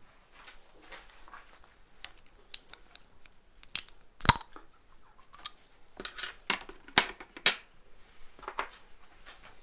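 Small dog eating from a bowl, its teeth and tongue knocking against the dish in an irregular string of sharp clinks and clicks, loudest a little before the middle and again in a quick run past the middle.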